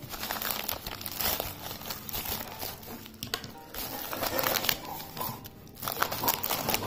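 Plastic courier mailer and bubble-wrap packing crinkling and rustling as they are torn open and handled.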